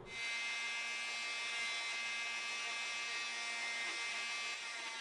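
Corded oscillating multi-tool running free with a steady buzzing whine, not yet cutting into the foam.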